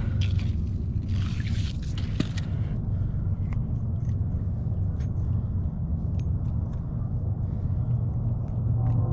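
Steady low rumble of wind buffeting the camera microphone out on open ice. Brief handling noise in the first couple of seconds, then a few faint small clicks.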